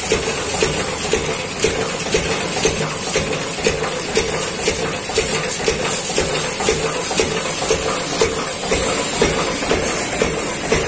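Stationary engine driving the water pump for the washing, running steadily with an even knock about twice a second, over a constant hiss of water.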